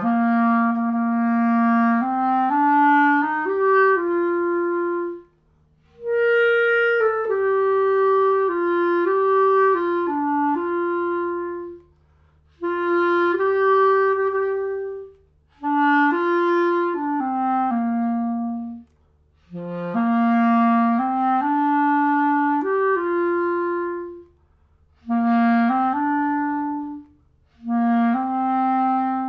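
Uebel Plateau soprano clarinet fitted with a 3D-printed PLA barrel, playing a melody. The notes run legato in about seven short phrases, with brief pauses for breath between them.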